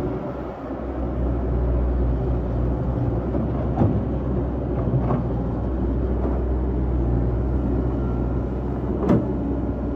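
Excavator engine running steadily under load, with three sharp knocks, the loudest near the end.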